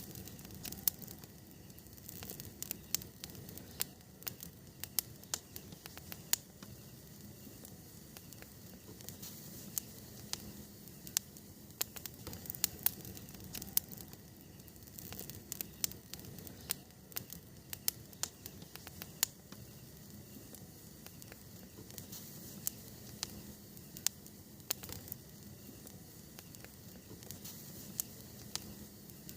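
Wood campfire crackling, with irregular sharp pops and snaps over a low steady hiss of burning.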